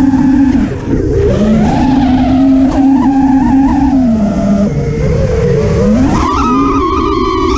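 FPV quadcopter's brushless motors whining, the pitch rising and falling with throttle, with a sharp climb in pitch about six seconds in as the throttle is punched.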